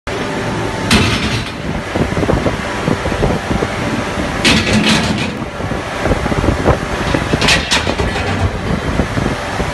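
Hydraulic ring rolling machine running as it rolls a red-hot forged ring: a loud, steady mechanical din with a dense, uneven low rumble. Short hissing bursts cut in about a second in, twice around five seconds, and twice around seven and a half seconds.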